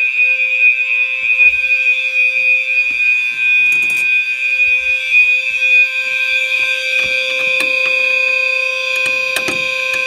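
Several fire alarm horns sounding together continuously from a collector's test setup, among them System Sensor and Wheelock horns and a sounder set to a steady 2400 Hz tone, making a loud, unbroken multi-tone blare. A few knocks and rustles of handling come through about four seconds in and again near the end.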